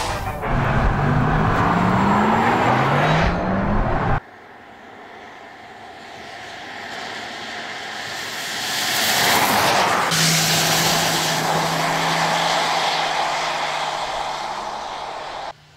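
Porsche Taycan Turbo S electric drivetrain accelerating, a whine rising in pitch several times over the first four seconds. After a cut the car approaches on a wet road, tyres hissing through the water, loudest about two-thirds of the way through. It then fades as the car drives away with a steady low hum.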